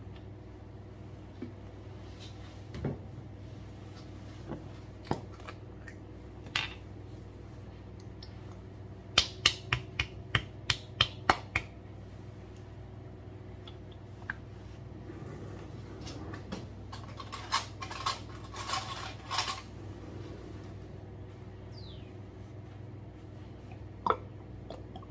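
Sauce bottles handled over a ceramic bowl: scattered clicks and knocks, and a quick run of about nine sharp taps a little before halfway as the upturned tomato sauce bottle is shaken and knocked to get the sauce out. A short rattly stretch follows a few seconds later, over a steady low hum.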